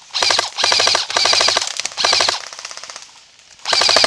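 Airsoft rifle firing full-auto bursts at close range, each a rapid even rattle of shots: four quick bursts in the first two and a half seconds, then another near the end.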